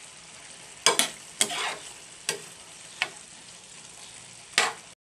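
Spatula scraping and stirring chicken pieces in a saucy metal pan: about six short strokes, over the steady hiss of the pan simmering on the stove.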